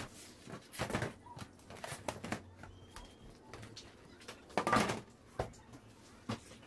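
Thin aluminium baking trays knocking and clattering against each other and against a metal worktop as one tray is laid over another and the pair is turned over. About half a dozen separate knocks, the loudest a little under five seconds in.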